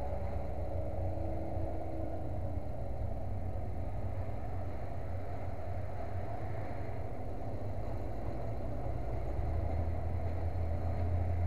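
An engine running steadily with a low rumble that grows louder near the end.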